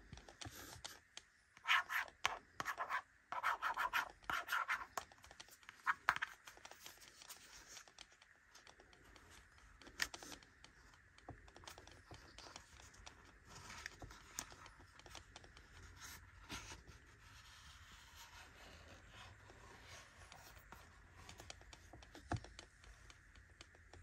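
Fingernails scratching and tapping on embossed, foil-printed makeup packaging: quick dense clusters of scratches for the first several seconds, then softer rubbing with a couple of single sharp taps.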